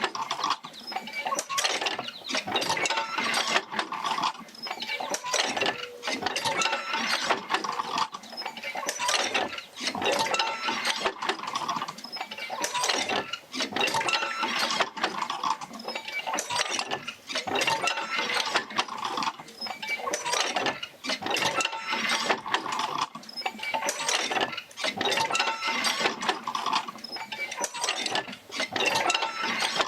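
Oil-field field wheel and its jerker lines working back and forth, driven by a Fitzgerald rig: a mechanical cycle of knocks, creaks and metal clinks repeating every couple of seconds.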